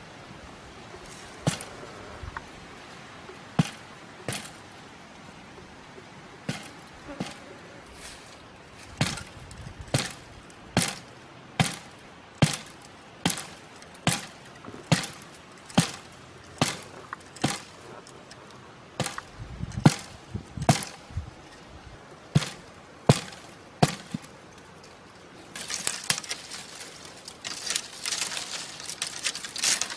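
A hand tool chopping into soil and roots at the base of a small tree. It makes a run of sharp strikes, a few at first and then about one a second through the middle. Near the end they give way to scraping and rustling of soil and dry leaves.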